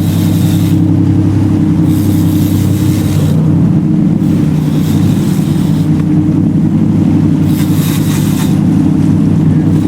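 Boat engine running steadily at a constant pitch, with a rushing hiss that swells and fades every couple of seconds.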